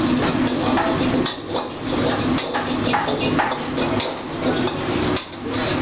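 Stir-frying in a steel wok on a gas wok range: a metal ladle knocks and scrapes against the wok about two or three times a second, over a steady rush of burner and kitchen noise.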